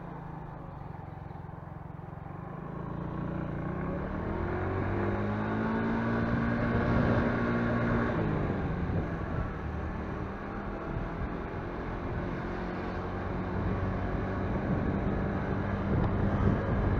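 Motorcycle engine running while riding, with wind and road noise; its pitch climbs over several seconds as it accelerates, drops about eight seconds in, then holds steady.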